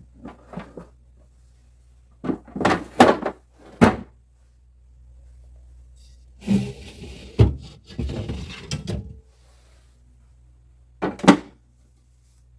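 Refrigerator drawers and shelves knocking and clattering as they are handled, in four short bursts, with a single sharp knock near the end.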